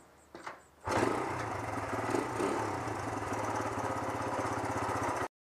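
An engine running steadily with an even firing rhythm. It comes in suddenly about a second in and cuts off abruptly near the end.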